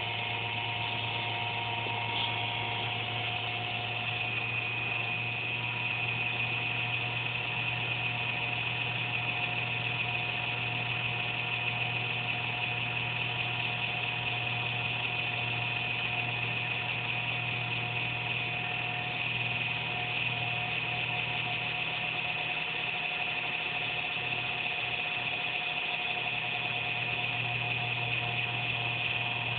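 Desktop computer giving off a steady electric buzz with a few high whining tones over it, the low buzz wavering briefly about three-quarters of the way in. This is the random inconsistent buzz the owner thinks is coming from a fan, though he isn't sure; performance is unaffected.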